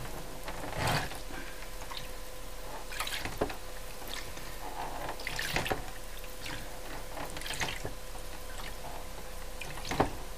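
Lith developer lapping and dripping in a shallow darkroom developing tray, in separate small splashes every second or two, over a faint steady hum.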